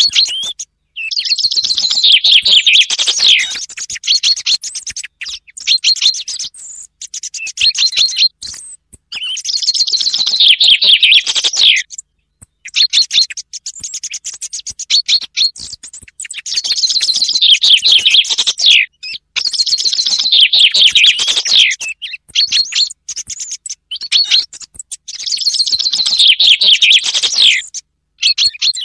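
Chaffinch song, repeated about six times: each phrase is a fast, high trill that drops in pitch and ends in a flourish. Short repeated notes fill the gaps, with a quieter song thrush mixed in. It is a recorded lure track for hunting chaffinch and song thrush.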